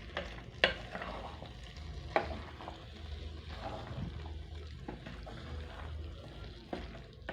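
A spoon stirring a pot of thick cooked beans, with a few sharp knocks of the spoon against the pot, the loudest about half a second in and just after two seconds.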